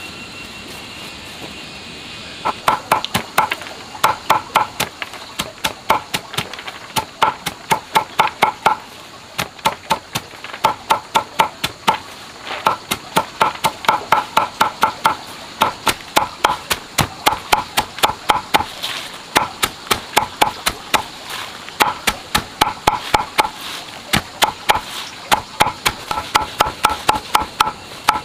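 A hand tool strikes wood or bamboo over and over, fast, in runs of several blows with short pauses between them. Each blow carries a brief ringing note. The blows start about two seconds in, over a steady background hum.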